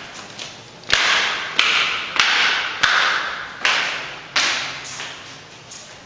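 Footsteps going down bare concrete stairs and across a bare floor, a sharp step roughly every two-thirds of a second, each echoing in the empty, unfurnished rooms.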